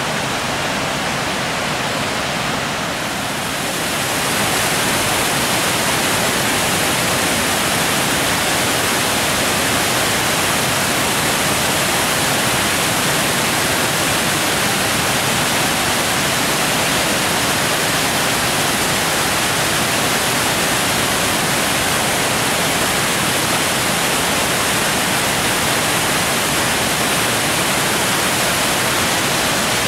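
A large waterfall on the Genesee River, its falling water rushing in a loud, steady wash of noise that grows a little louder about four seconds in.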